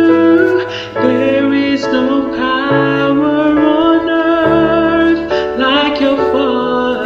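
Slow ballad playing: a singer holding long, wavering notes over a keyboard and bass accompaniment.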